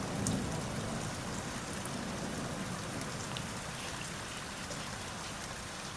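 Steady rain falling and pattering on surfaces, with scattered drops ticking close by.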